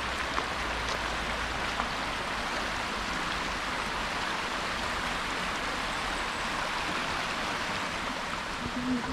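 Water rushing over a waterfall: a steady, even hiss of falling water.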